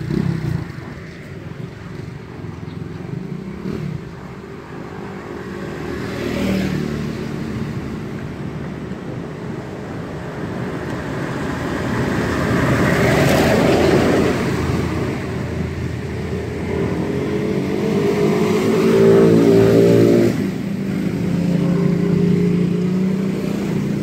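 Road traffic passing close by: a large cargo truck swells up and fades away about halfway through. Then more engines pass, one climbing in pitch before it breaks off sharply, and another steady engine runs near the end.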